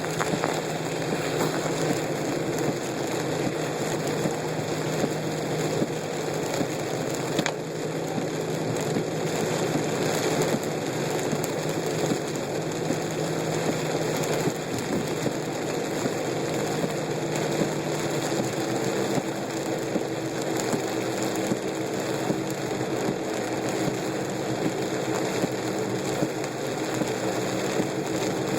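Inside a car driving through heavy rain: a steady wash of rain on the car and tyres on the flooded road, with a low, steady engine hum underneath. A single brief tick about seven and a half seconds in.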